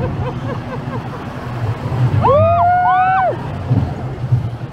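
Roller coaster car rumbling along its steel track, with wind on the microphone. About two seconds in, two riders let out a long whoop together that rises, holds for about a second and falls away.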